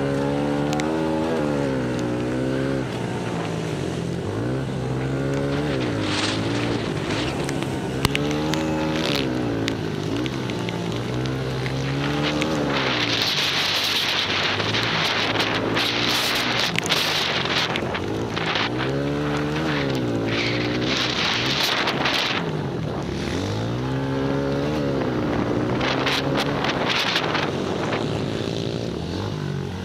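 Pit bike engines racing, their pitch rising and falling again and again as the throttle is opened and closed. A rushing noise swells in the middle.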